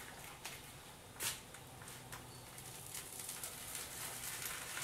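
Garlic bread frying in a skillet: a soft sizzle that grows louder over the last couple of seconds, with a few light clicks of handling earlier, the clearest about a second in.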